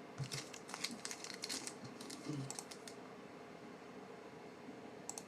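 Trading cards being handled and flipped through by hand, a run of faint quick clicks and flicks of card edges over the first three seconds, then fainter.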